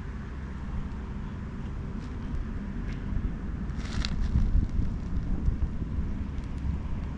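Wind buffeting an action-camera microphone outdoors, a steady uneven rumble, with one brief sharp noise about four seconds in.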